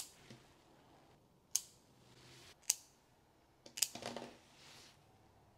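Pet nail clippers snipping a cat's claws: four sharp, separate clicks a second or so apart, the last with a little rustle of handling around it.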